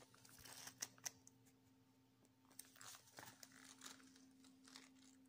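Near silence: faint room tone with a low steady hum and a few soft scattered clicks.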